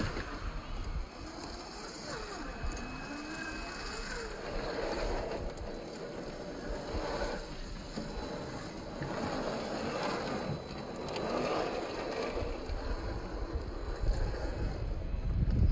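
RC scale rock crawlers (a Traxxas TRX-4 Defender and an Axial SCX10 III Jeep) whirring in short throttle bursts as their electric motors drive them over rock, with a few brief rising and falling motor whines early on. Wind noise on the microphone builds near the end.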